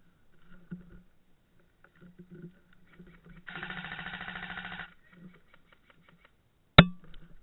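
Electric airsoft gun firing a full-auto burst, a fast, even mechanical rattle lasting about a second and a half. Near the end comes a single sharp, loud crack, louder than the burst.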